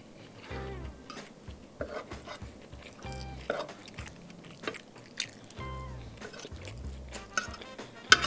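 Spaghetti being slurped and chewed: wet sucking and smacking mouth noises, with a sharp loud smack near the end. Background music plays underneath.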